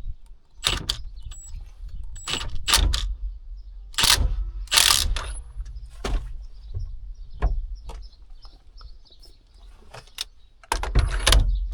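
Irregular knocks, clicks and scrapes of metal parts and hand tools as a steering adapter collar and bolt are worked onto a combine's steering column, with a louder clatter about five seconds in and again near the end.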